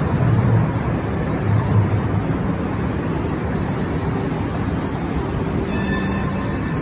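Hong Kong Light Rail train passing close by at a level crossing: steady running noise of the wheels on the rails and the traction motors as the cars go by.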